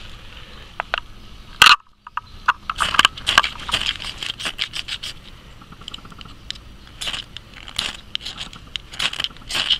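Flint and steel struck again and again over a tinder bundle of dry grass: a run of short, sharp scrapes at an uneven pace, throwing sparks to light the tinder.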